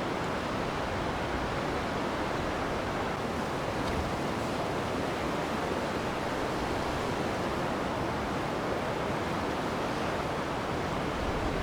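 Swollen floodwater rushing steadily, an even roar with no breaks.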